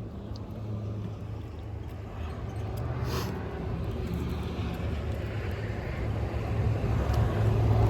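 Road traffic: motor vehicles running on the street, a low steady engine hum that grows louder toward the end as a vehicle comes closer.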